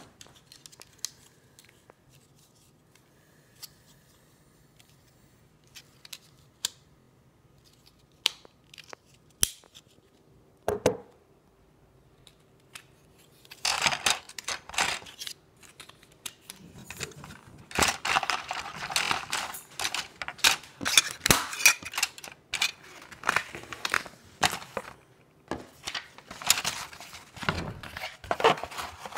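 Cardboard model-kit box and plastic parts being handled on a wooden table. First come scattered light taps and knocks, then, from about halfway through, a dense run of rustling, scraping and crinkling.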